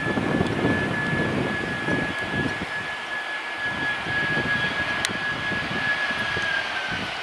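Airbus A320-214's CFM56 turbofan engines running on final approach and into the flare. A steady high whine sits over a rushing jet rumble, and the whine drops slightly in pitch near the end.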